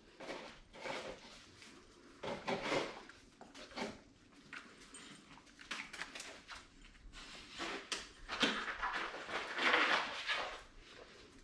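A greyhound dam shifting about on blankets in a plastic whelping pool and nosing at a newborn puppy: irregular rustling and scuffing of fabric in bursts, loudest near the end.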